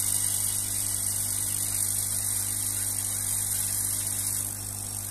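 Home-built CO2 laser cutter running a cutting pass through plywood: a steady electrical hum under a high hiss. The hiss drops away about four and a half seconds in, and the hum carries on.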